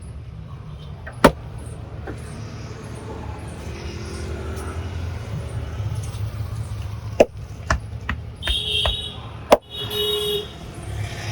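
Street traffic rumbling steadily, with a vehicle horn honking twice near the end. Several sharp hand slaps of a head massage cut through, one about a second in and a quick run of them in the last few seconds.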